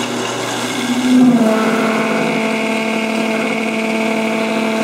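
Metal lathe running with a steady motor and gear hum while facing off the end of a steel sleeve on a rifle barrel. About a second in, the pitch steps up and the sound gets a little louder, then holds steady.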